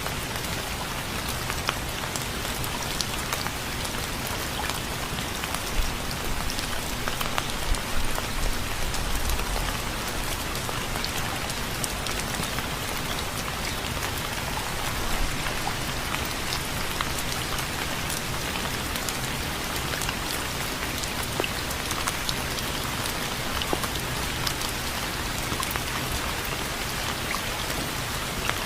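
Steady rain falling on surfaces, an even hiss dotted with the sharp ticks of individual drops, with a few soft low thumps between about 6 and 10 seconds.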